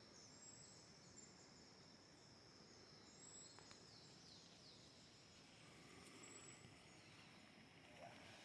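Faint forest ambience: a steady high-pitched insect drone, with a few brief high bird calls, several of them sliding down in pitch about halfway through.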